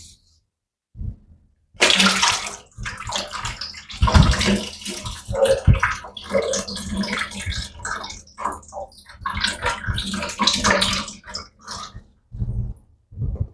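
Old automatic transmission fluid pouring and splashing out of a 2009 BMW 750i's transmission oil pan, starting about two seconds in and dying down near the end.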